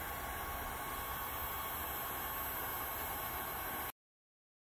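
Wagner heat gun running steadily, its fan blowing hot air onto a kayak's plastic hull to darken and rejuvenate the sun-faded plastic. The sound cuts off suddenly near the end.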